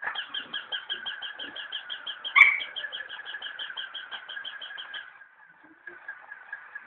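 Plush robot dog toy's mechanism running with a rapid, even buzzing pulse, about six pulses a second, that fades after about five seconds. A single brief, sharp sound stands out about two and a half seconds in.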